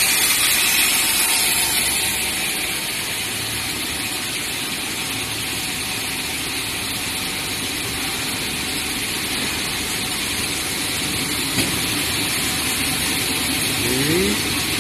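Steady mechanical running noise with a hiss from a network cable production line's machinery (insulation extrusion line with water cooling trough and wire reels), with a short rising whine near the end.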